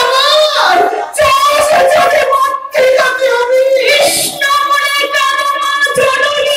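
A high voice singing a Bengali devotional song in long, held phrases with a wavering vibrato.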